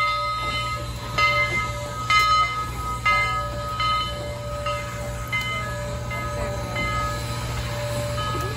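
The bell of Southern 4501, a 1911 steam locomotive, ringing as the engine rolls slowly past, struck about once a second with a lingering ring that grows weaker in the second half, over a steady low rumble.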